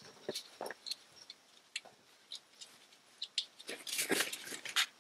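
Scattered light metallic clicks and taps as parts are handled and fitted onto a car gearbox's top, with a brief spell of scuffing about four seconds in.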